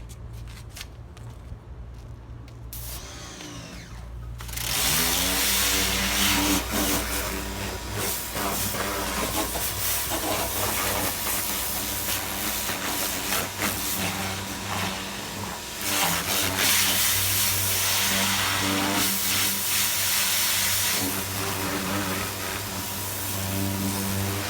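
Pressure washer kicking on about four seconds in: its pump motor spins up under a loud, steady hiss of water spray, which dips and surges a few times as it is aimed.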